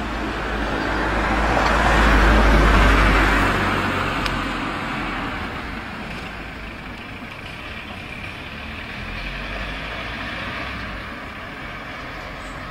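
A motor vehicle passes close by, its engine rumble and road noise swelling to a peak about two to three seconds in and then fading, leaving steady traffic noise.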